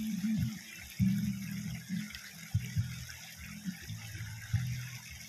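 Shallow river water running steadily around people wading in it, with a low hum that comes and goes in short spells.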